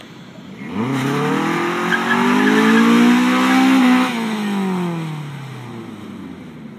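A car engine accelerating hard from a standing launch. Its pitch climbs steadily for about three seconds, then the engine lifts off and the pitch falls away as the car runs on down the lot.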